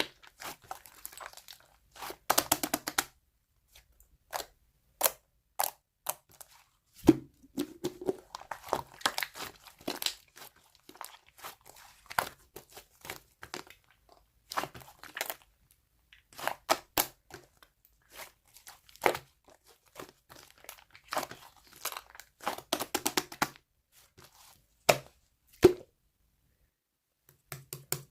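Slime being mixed and squeezed by hand, giving irregular bursts of crackling and crunching with short pauses between them.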